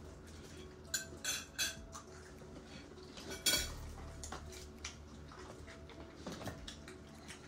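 Clinks and light knocks of plates and cutlery at a meal table during eating, with a quick run of clatters about a second in and a sharper knock about three and a half seconds in.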